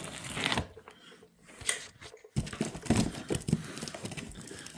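Cardboard box and its packing being handled and opened: irregular rustling, crinkling and small knocks, with a short lull in the middle before the rustling resumes.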